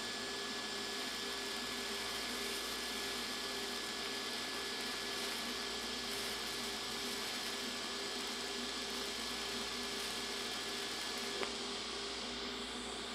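TIG welding arc running steadily with a hiss and a thin high whine while a quarter is fused to mild steel plate; the arc cuts off with a click about eleven seconds in, leaving the welder's steady hum and hiss.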